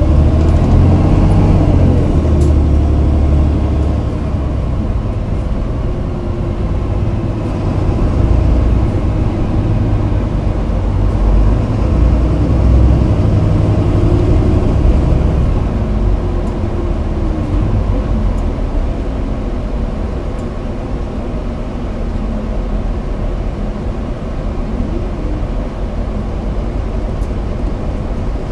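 Toei city bus heard from inside the cabin: a steady engine rumble and road noise, with the engine note rising and falling a few times as the bus pulls along and changes speed.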